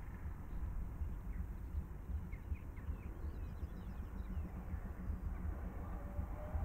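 Distant preserved steam locomotive working a passenger train toward the listener, heard as a low steady rumble, with small birds chirping over it for a few seconds near the start.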